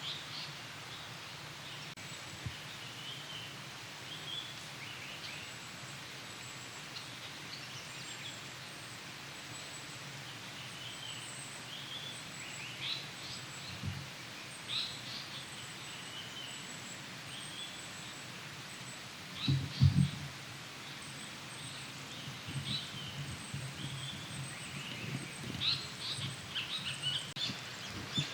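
Songbirds calling in woodland: scattered short chirps and call notes, more frequent toward the end. A dull low thump about halfway through and a louder double thump about two-thirds through.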